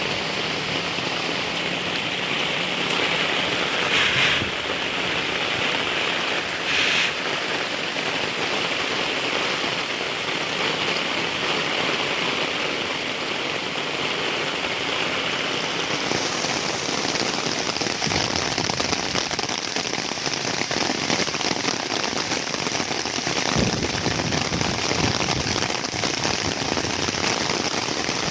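Heavy rain falling steadily. About halfway through it turns brighter into a dense, crackling patter of drops hitting a surface close by, and there are two brief louder swells earlier on.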